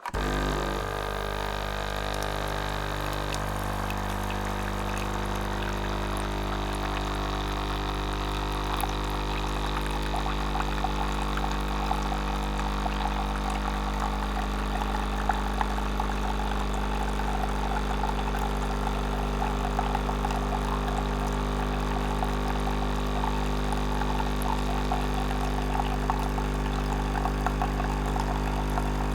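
Coffee machine running: a steady electric hum with a stack of even tones. Over it comes a liquid, crackling layer that grows busier from about eight seconds in.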